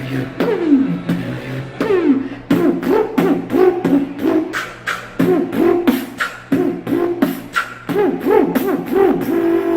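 Beatboxing: mouth-made percussion with quick rhythmic clicks and snare hits over vocal bass sweeps that repeatedly fall in pitch, in a dubstep style, settling into a held buzzing note near the end.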